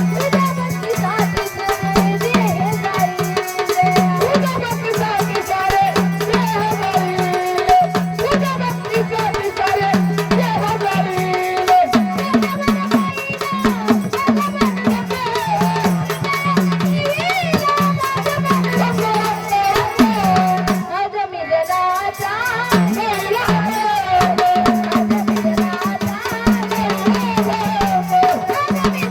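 Marathi gondhal devotional folk music: a voice singing a melody over a steady drum beat and continuous rattling percussion.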